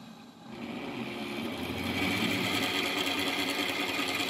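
Betar SGV-15 domestic vane-type water meter whirring loudly as water rushes through it, its impeller spinning fast. The noise builds over the first two seconds, then holds steady. The owner finds the noise awful in a meter this new and expects it to fail soon.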